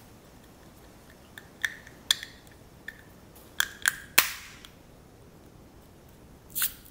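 Plastic Alfa Romeo wheel centre cap being pressed by hand into the alloy wheel's hub: a series of sharp plastic clicks and snaps, the loudest about four seconds in.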